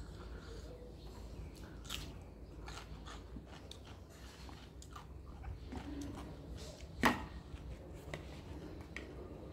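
Close-up eating sounds: chewing and mouth clicks with small scattered clicks of chopsticks and dishes, and one sharp click about seven seconds in.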